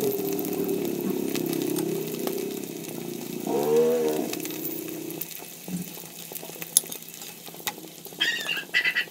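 Tuyo (dried salted fish) frying in hot oil in a wok, a steady sizzle with scattered pops. A low pitched drone sounds under it for about the first five seconds and then stops. Short animal-like calls come about eight seconds in.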